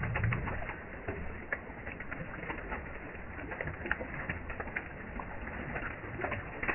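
Water splashing and small fish flapping as a plastic basket is scooped through a crowded net pen, then water pouring out of the lifted basket, a busy run of irregular small splashes and patters.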